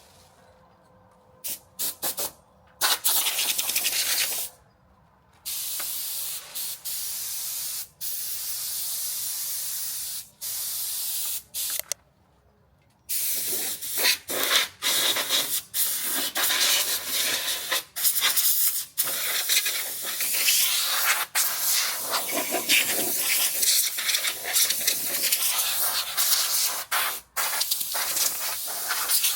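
A hissing spray of air or liquid: on-off bursts of a second or more with short breaks, then running almost without a break from about halfway through, its level fluttering.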